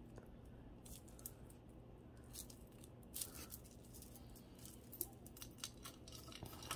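Costume jewelry being handled: faint, scattered small clicks and clinks of beads and small metal pieces, coming more often near the end.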